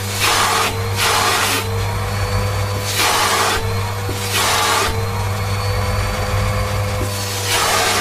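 Siemens Synchropower vacuum cleaner running steadily with a constant motor whine, its suction hiss swelling loudly several times as the wand nozzle sucks at and drags a fluffy fur tail across a tiled floor.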